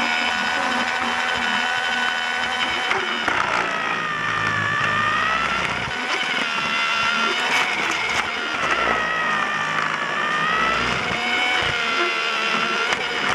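Small electric motor of a battery-powered Lego Duplo toy train running along plastic Duplo track, a steady whine that wavers up and down in pitch, with a few clicks.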